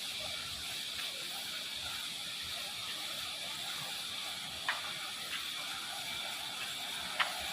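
Steady high-pitched insect chorus of crickets, a constant hiss, with two short clicks, one about two-thirds in and one near the end.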